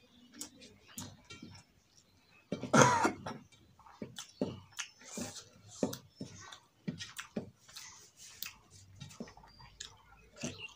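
Close-up eating sounds: chewing and lip smacking on rice and fish curry, and fingers mixing rice on a steel plate. About three seconds in comes one loud, short throat sound from the eater, the loudest thing here.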